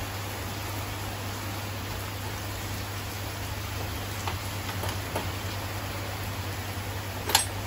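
Steady hiss of rain with a low steady hum under it, and a few light metal clicks from tools and wheel weights being handled in a wheel balancer's tray; one sharper click near the end.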